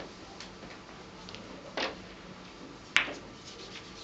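Two sharp clicks about a second apart from a shot on a keglebillard table, cue and balls striking; the second click is the louder.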